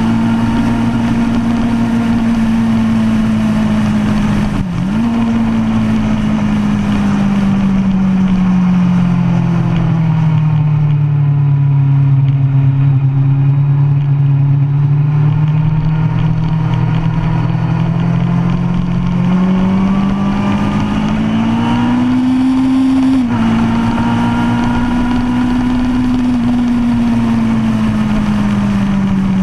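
2005 Kawasaki Ninja ZX-10R's inline-four running hard through a DanMoto racing exhaust, heard onboard with wind rush. The engine note holds high and dips briefly about five seconds in. It then sags lower and steadier through a long bend, climbs again, and steps down sharply about 23 seconds in before easing off near the end.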